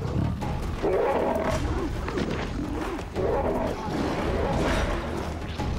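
Male lions fighting, snarling and growling in two long bouts with a short break about three seconds in.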